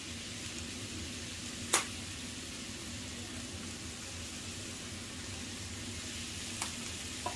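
Sliced baby bella mushrooms sizzling steadily in hot olive oil in a nonstick skillet, with one sharp click about two seconds in and two faint clicks near the end.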